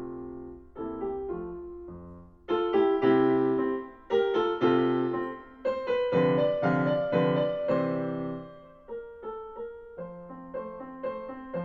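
Yamaha Clavinova digital piano playing a preset piece, recorded by a stereo pair of small-diaphragm condenser mics in the room: struck chords and melody notes that decay between strikes, louder from about two and a half seconds in and softer near the end.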